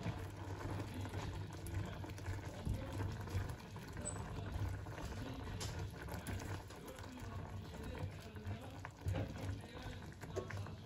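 Creamy chicken and mushroom sauce simmering quietly in a frying pan while a wooden spoon stirs through it, with light scraping against the pan. Background music plays underneath.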